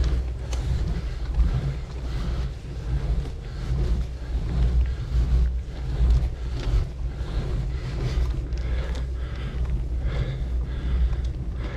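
Wind buffeting the microphone of a camera on a moving bicycle: a steady, uneven low rumble, with scattered light rattles.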